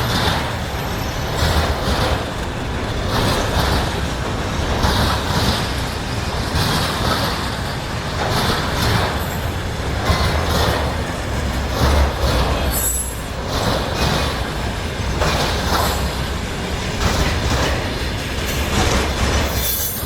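A train passing close by at speed: a steady loud rolling noise from the wagons, with wheels knocking over the rail joints about once a second.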